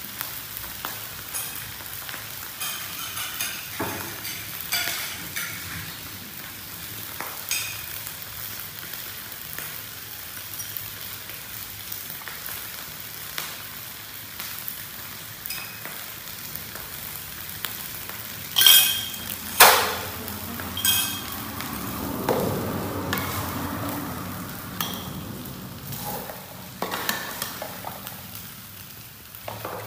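Metal spoon scraping and clinking against a steel wok as fried rice is dished out, over a steady hiss. Two loud clinks stand out a little past halfway.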